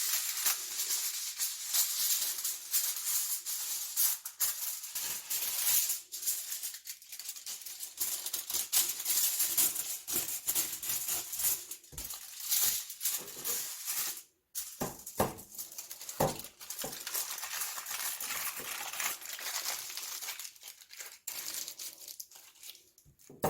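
Aluminium foil crinkling and rustling as it is wrapped around eggs and sweet potatoes, an irregular dense run of crackles that breaks off briefly about fourteen seconds in.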